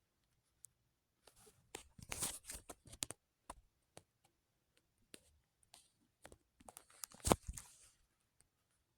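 Close-up handling noises: irregular small clicks and taps with short rustling, scraping sounds between them, the loudest a sharp knock about seven seconds in.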